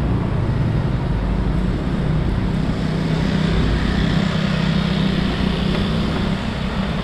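Steady rumble of wind and road noise from a camera riding along on a bicycle over a stone-paved street. Motor scooters run close alongside, and their engine sound is strongest from about three seconds in until near the end.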